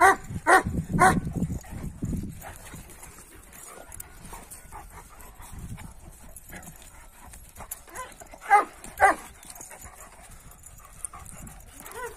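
Kangal dogs play-fighting: three short yips in quick succession at the start, over a low growl, then two more yips about eight and a half seconds in.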